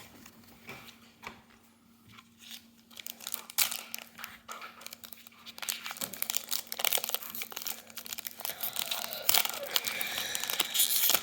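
Foil trading-card booster pack wrappers crinkling and tearing as they are opened and handled, sparse at first and busier and louder through the second half.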